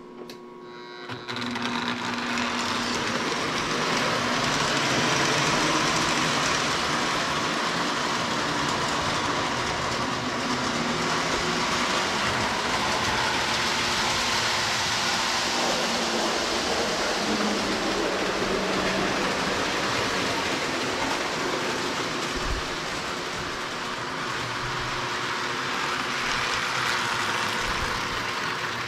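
A Lionel O-gauge model train running on the track: its motor and wheels make a steady running noise that starts about a second in and holds.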